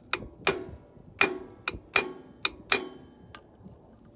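Hammer tapping a new wheel stud into a Honda four-wheeler's wheel hub: about eight sharp taps at an uneven pace, each with a short metallic ring.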